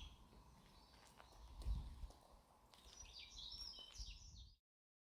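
Faint birdsong: a small bird sings a quick run of short high notes for about a second and a half, then the sound cuts off abruptly. Earlier, a soft low rumble swells briefly.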